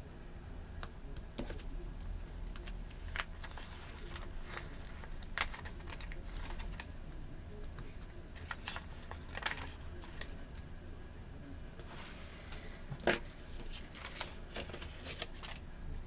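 Irregular light clicks and taps of hands working with a planner, stickers and pen on a desk, a little louder once about 13 seconds in, over a steady low hum.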